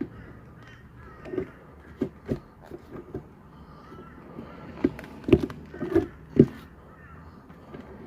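A series of short knocks and clicks from the gearshift linkage parts and the taped temporary bushing being handled and fitted by hand.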